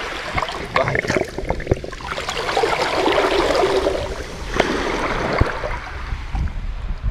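Shallow seawater sloshing and splashing, swelling and fading, with a few sharp knocks or splashes.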